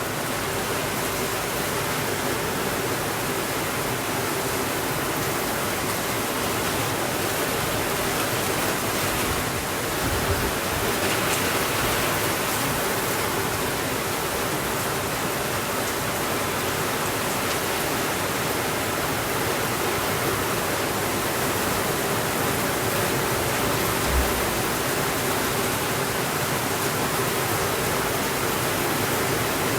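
Steady heavy rainfall, a dense even hiss with no letup. A soft low thump comes about ten seconds in, and a sharper short low thump comes later.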